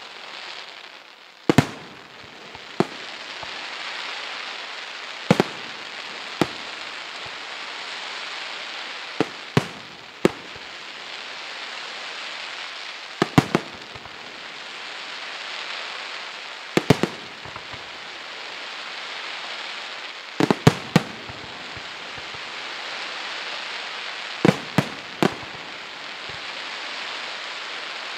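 Fireworks display: aerial shells bursting with sharp bangs every one to four seconds, some in quick clusters of two or three, over a steady hiss from the rising comets and falling stars.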